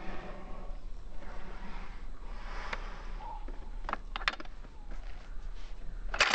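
Pump-action shotgun being handled: a couple of light metallic clicks about four seconds in, then a sharper, louder clack near the end.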